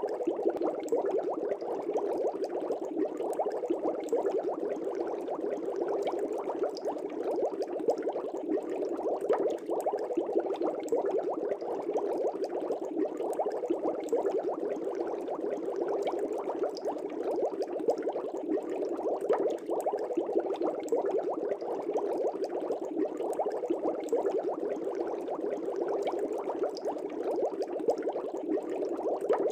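Steady, dense bubbling of air bubbles in a fish tank.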